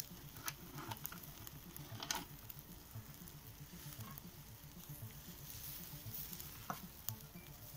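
Skewered chicken hearts sizzling quietly over hot charcoal in a mangal, with a few sharp clicks and pops scattered through.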